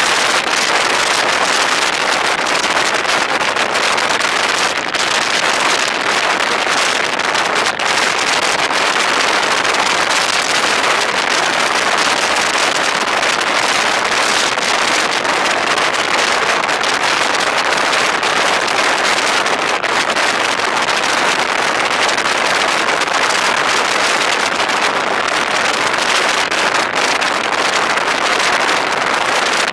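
Steady rushing noise of a car driving along a road: wind and road noise on a vehicle-mounted camera's microphone, even throughout, with no distinct engine note or other events.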